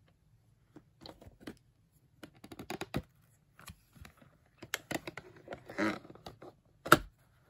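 Plastic VHS cassette and its clamshell case being handled: a run of light clicks, taps and rattles as the tape is set into the case, with one sharp plastic snap just before the end.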